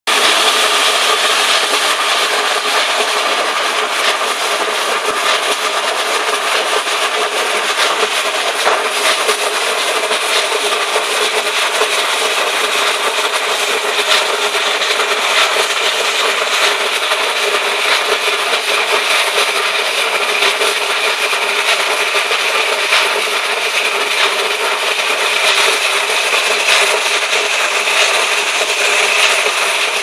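Husqvarna walk-behind concrete floor grinder running steadily, its grinding head abrading the slab: a constant grinding rasp with a whine through it and scattered light ticks. It is grinding water-damaged surface concrete down to sound concrete.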